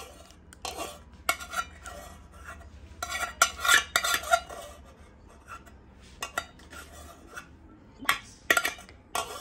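Metal spoon scraping and clinking against the inside of a steel pot, scooping out melted chocolate in irregular strokes, loudest about three to four seconds in and again near the end.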